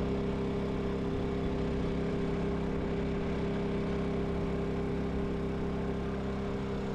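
Honda portable inverter generator running steadily: an even engine hum with a clear, unchanging pitch.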